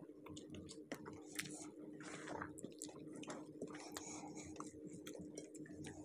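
Close eating sounds of rice and fish curry eaten by hand: wet chewing and the squish of fingers working rice into curry, with many small irregular clicks.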